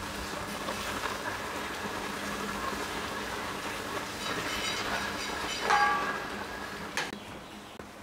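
Thick curry sauce simmering and bubbling in a wok while a ladle stirs it. A short ringing scrape of the ladle against the pan comes near six seconds, the loudest moment, followed by a sharp click.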